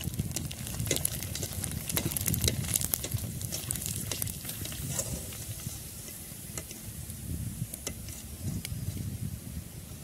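Ready-made pani puris deep-frying in hot oil in a steel kadai: a steady sizzle full of small crackling pops, while a wire-mesh skimmer stirs them and lifts them out of the oil. The crackling thins out about halfway through. A low rumble runs underneath.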